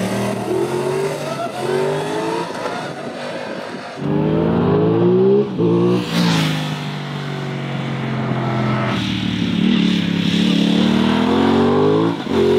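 Aprilia 660's 659 cc parallel-twin, its offset crankpins giving it a V-twin-like sound, accelerating up through the gears, its pitch climbing and dropping back at each shift. It gets louder about four seconds in and sweeps past close by around six seconds, then pulls away in another long climb.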